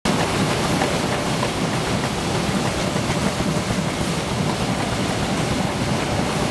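CLC-AFG 2600B automatic folder gluer for corrugated boxes running: a steady mechanical rumble with a fine, rapid ticking from its feeder, belts and rollers.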